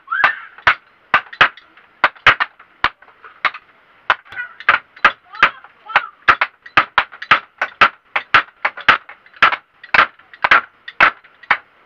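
Hammer blows on a wooden bed frame under repair, struck over and over at about two to three a second, each a sharp knock with a short ring.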